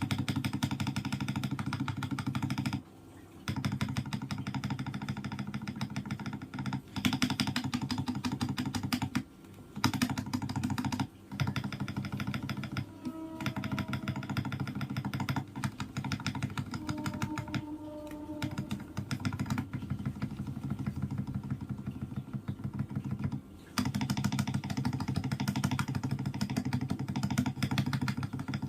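Akko 5075S mechanical keyboard being typed on fast and continuously: a dense run of thocky, low-pitched keystrokes, broken by a few short pauses.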